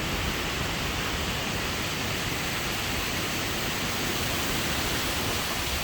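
Strong wind rushing through the leaves of trees: a steady, even hiss with no single gust standing out.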